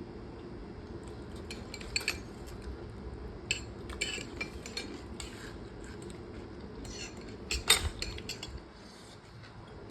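Metal cutlery clinking and scraping against a bowl while eating instant noodles: scattered light clinks, with the loudest about three-quarters of the way through.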